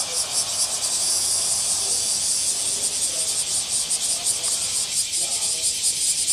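Cicadas in a loud, high-pitched summer chorus, pulsing about five times a second and merging briefly into a steady drone about a second in.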